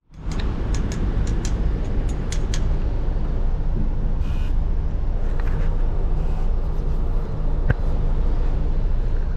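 Bus engine running with a steady low hum. A few light clicks sound in the first couple of seconds, and one sharp tick comes about three-quarters of the way through.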